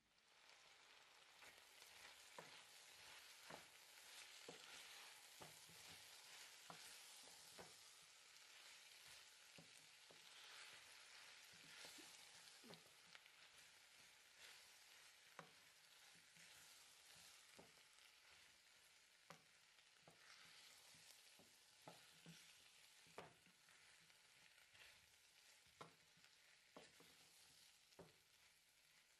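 Shredded cabbage, carrots and potatoes sizzling quietly in a stainless steel pot as they are stirred with a wooden spoon. Light knocks and scrapes of the spoon against the pot come about once a second over a steady hiss.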